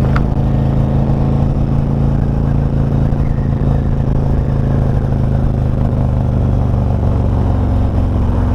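Harley-Davidson CVO V-twin motorcycle engine running steadily under way, a constant low drone with wind and road noise over it. There is a short click right at the start.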